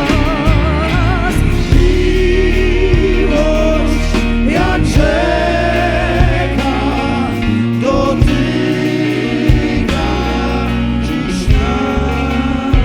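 A live worship band playing, with singing voices holding long notes with vibrato over the band, and drum hits.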